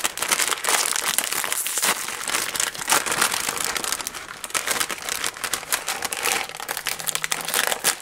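A plastic instant-noodle packet crinkling and crackling in a dense, uneven run of rustles as it is handled and pulled open.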